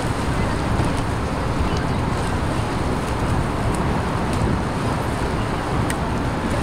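Steady rushing noise of a motorboat under way, its engine, the water and wind on the microphone blended together.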